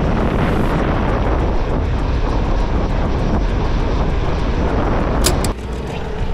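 Wind rushing over the camera microphone on a bicycle moving at speed downhill, a steady loud rush that drops sharply to a quieter one about five and a half seconds in.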